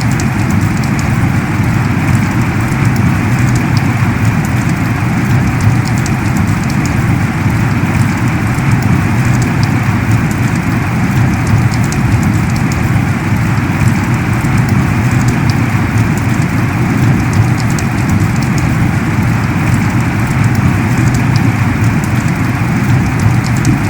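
Heavy rain falling steadily in a dense, unbroken downpour, with fine scattered drop ticks over it.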